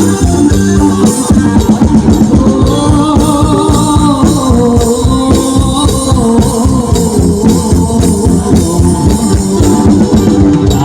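Khmer romvong dance song: a singer over a steady drum beat and percussion, played loud.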